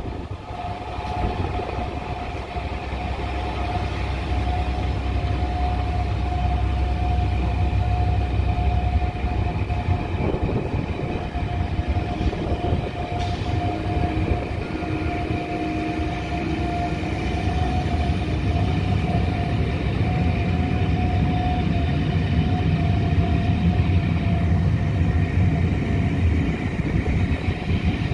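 Blue-and-grey locomotive-hauled passenger coaches rolling past, their wheels running on the rails with a low rumble and a steady whine through most of the passing.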